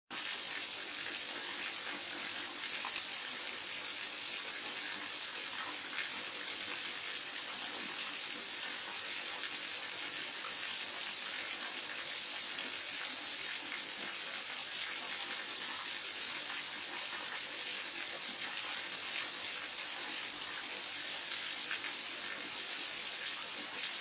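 Steady, even rush of cascading water, with no breaks or changes.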